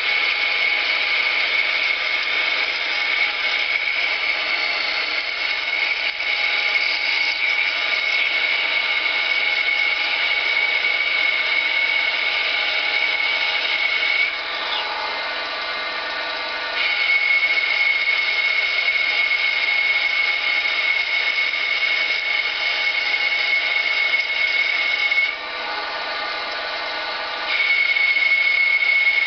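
Schaublin lathe running a CNC turning job, with a steady high-pitched whine over a machine hum. The whine drops out twice, about halfway through and again near the end, for about two seconds each time, and the sound gets quieter while it is gone.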